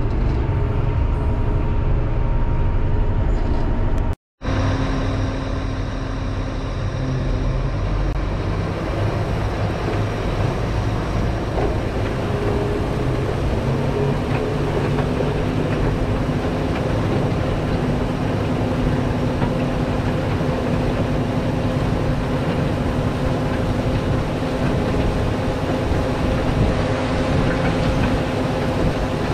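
Caterpillar 140 motor grader running steadily under load while blading gravel. First it is heard from inside the cab. After a split-second dropout about four seconds in, it is heard from beside the moldboard, with the blade scraping and dragging gravel.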